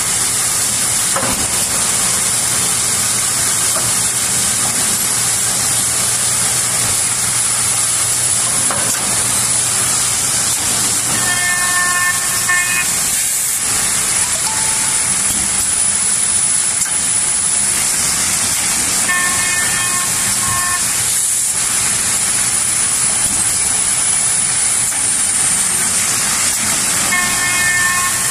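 Automatic edge banding machine line running: a steady, loud, hiss-like machinery noise with a thin high whine. Three times, about eight seconds apart, a brief tonal sound of about a second rises above it.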